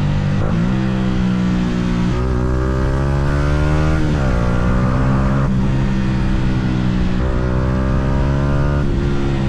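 Yamaha R125's single-cylinder four-stroke engine under hard riding: its pitch climbs steadily and then drops sharply several times as gears are changed.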